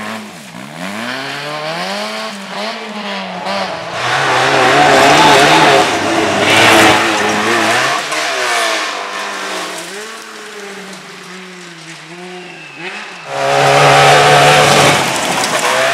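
Rally car engine revving hard through gear changes, its pitch rising and dropping, as it passes close. It is loudest about four seconds in and again near the end.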